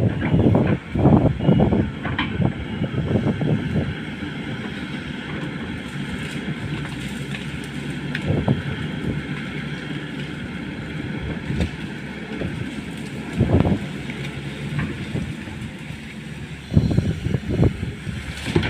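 Pindad excavator's diesel engine running steadily, with louder surges at the start, about two-thirds of the way in and near the end.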